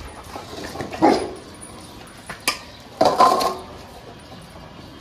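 A dog barking twice, about a second in and again about three seconds in, with one sharp click between the barks.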